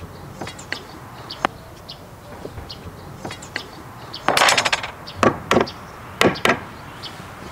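Back of a hatchet knocking a tenoned wooden upright down into its mortise in a frame rail: scattered sharp wooden knocks, a quick flurry a little past halfway, then two pairs of blows. Small birds chirp faintly now and then.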